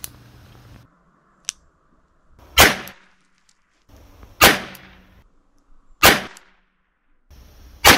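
An 1880 British Bulldog pocket revolver in .320 firing four blank rounds, each a sharp crack with a short echo, about one and a half to two seconds apart. Two small clicks come before the shots.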